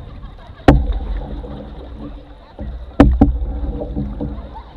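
Canoe paddle strokes: a knock of the paddle against the canoe's hull about a second in and a double knock near three seconds, each with a low thump that fades out.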